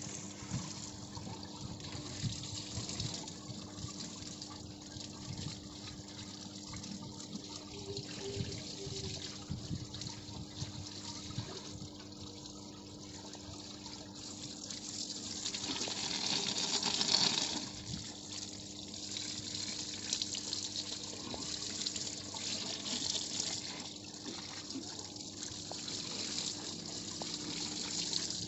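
Pressurised jet of flushing oil spraying from a hand-held hose nozzle into the open compartment of a power transformer's on-load tap changer, splashing over the diverter parts. A steady hum runs underneath, and the spray swells louder about halfway through.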